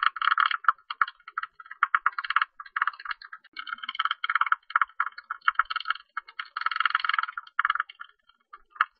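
Tube-nosed bat calling: rapid trains of short chattering clicks, in bursts of under a second to about a second with short gaps between them.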